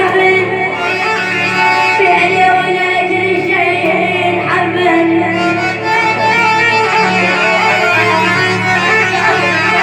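Music: an Arabic song with instruments playing.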